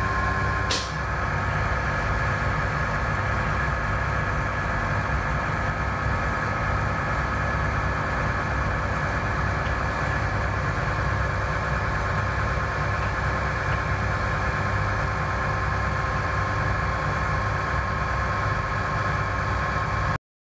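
Steady machine hum: a low rumble with a few held tones. There is one sharp click a little under a second in.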